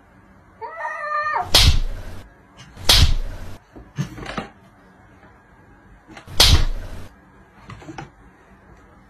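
Domestic cat in a standoff with another cat: a short wavering yowl, then loud hisses about one and a half, three and six and a half seconds in, with a few softer hisses between.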